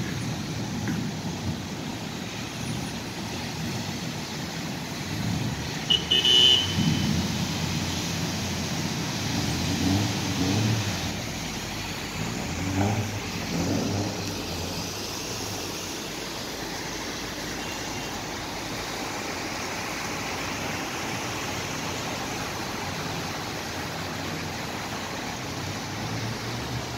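Road traffic driving through floodwater: car and truck engines passing slowly over a steady wash of water and tyre noise, with a few louder low rumbles as vehicles go by. There is a brief sharp sound about six seconds in.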